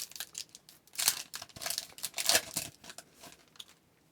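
A pack of trading cards being handled: three short crinkling, sliding rustles of wrapper and card stock, then a few faint ticks.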